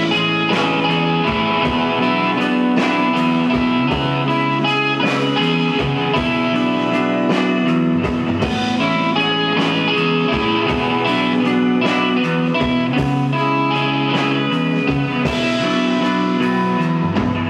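Live rock band playing an instrumental passage between sung verses: electric guitar over bass and a drum kit.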